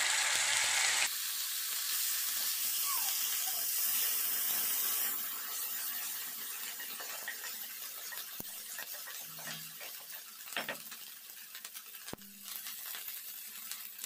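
Ginger-garlic paste sizzling in hot oil with cumin and mustard seeds in a nonstick kadhai, loudest for the first five seconds and then dying down. A wooden spatula stirs and scrapes the pan, with a couple of sharp clicks later on.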